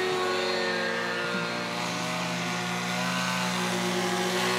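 Radio-controlled model airplane engine running at a steady pitch as the plane flies low past.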